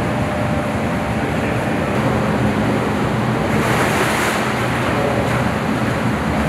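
Water churning and splashing in a training pool, with the splashing strongest about three and a half to four and a half seconds in, over a steady low hum.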